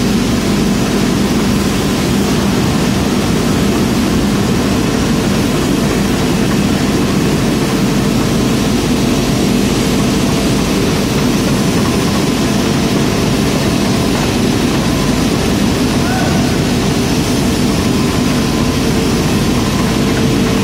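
GFM four-jaw radial forging machine working a red-hot steel bar: a loud, steady machine noise with a constant low hum, running without a break.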